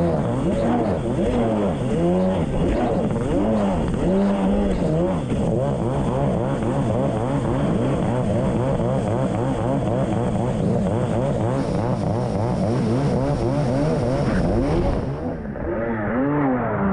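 1990 Kawasaki JS550SX stand-up jet ski's two-stroke twin running hard through its Coffman half-pipe exhaust, the revs rising and falling about once a second as the rider works the throttle, with water spray rushing under the hull. Near the end the engine eases off.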